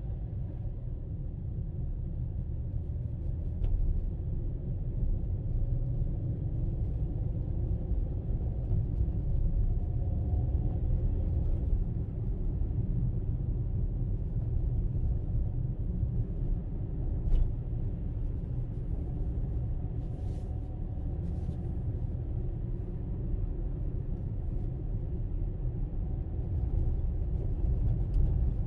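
Steady low rumble of a vehicle driving along a road: engine and tyre noise, with two brief sharp clicks, one a few seconds in and one just past the middle.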